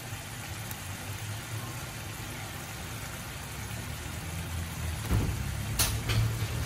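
A steady low hum in a home kitchen, with two light knocks about five and six seconds in as fried fish pieces are laid into a pan of gravy.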